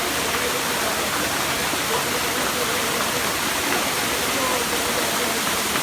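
Waterfall's steady rush of falling water, with a faint voice under it.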